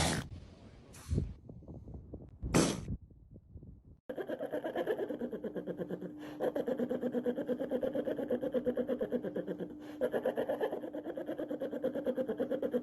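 Three short, sharp animal sneezes in the first three seconds. Then a steady rhythmic pulsing, about four beats a second, over a constant hum.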